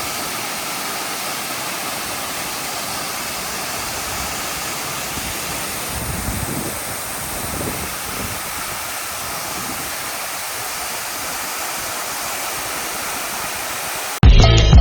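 Steady, even rush of a waterfall, with a few low rumbles of wind on the microphone about six to eight seconds in. Near the end it cuts off abruptly into loud music with percussion.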